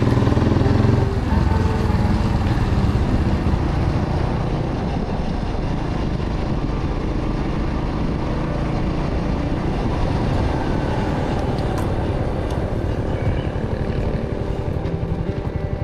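Motorcycle engine running steadily while riding along a road, a little louder in the first second before the throttle eases.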